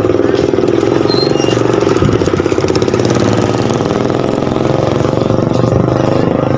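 Engines running close by: a steady engine drone, with a motor scooter's engine passing at close range. The engine pulses stand out more sharply about two to three seconds in.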